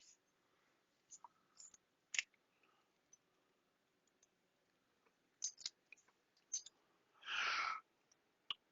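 Soda cans being loaded into a vending machine's columns: scattered light clinks and knocks of cans and metal, with a louder half-second rush of noise near the end.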